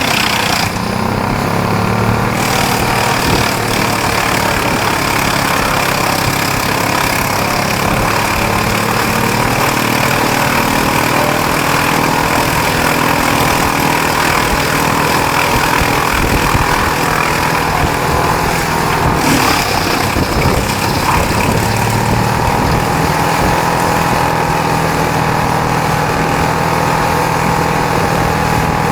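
Large wood chipper's engine running steadily at a constant, loud level.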